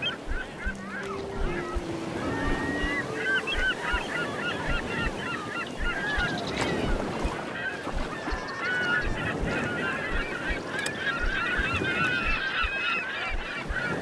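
A flock of birds calling and chattering over a steady wash of surf and wind, with a few short low tones in the first few seconds.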